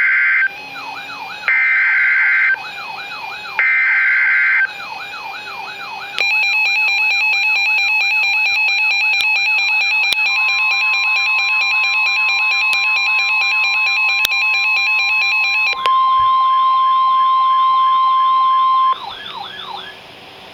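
Emergency Alert System alert tones: three one-second bursts of buzzy digital SAME header data, over a wailing siren tone that sweeps up and down about twice a second. From about six seconds a louder, denser electronic alarm tone joins in. Near the end the steady single-pitched NOAA Weather Radio warning alarm tone sounds for about three seconds, and then the tones cut off.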